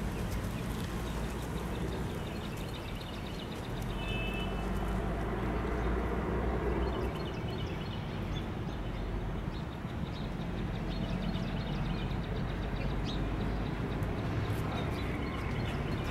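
Outdoor ambience: a steady low rumble of road traffic, with a few short high chirps about four seconds in.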